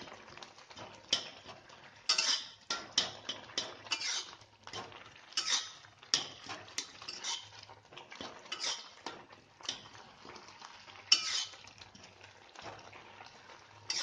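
Metal spatula scraping and stirring thick tomato chutney around a metal kadai, in irregular scrapes about one or two a second. The chutney is cooked down and ready.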